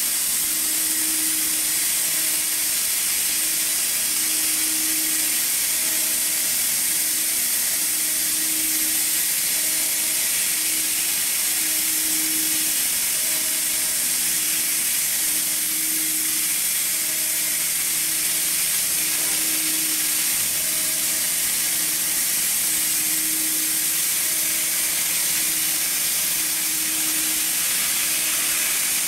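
Hightex S700 hot air welding machine blowing a steady hiss of hot air from its welding nozzle, with a faint low hum that comes and goes in short, regular pulses.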